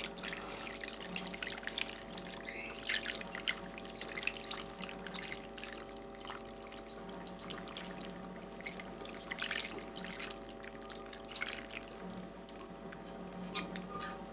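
Sauce being poured and trickling, with faint drips. A steady hum runs underneath.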